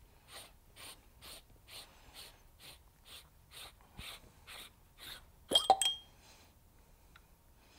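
An oil catch can being unscrewed by hand: a soft rasp of the threads, repeated about twice a second as it is turned, then a couple of sharp clicks about five and a half seconds in as it comes apart.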